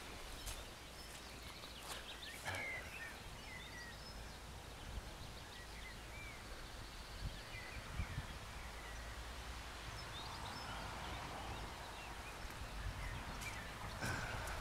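Outdoor garden ambience: a steady low background noise with scattered short bird chirps, and a few brief clicks from the camera being handled or footsteps.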